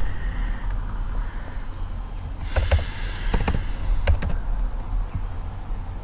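Typing on a computer keyboard: a few quick keystrokes in two or three clusters between about two and a half and four and a half seconds in, over a steady low hum.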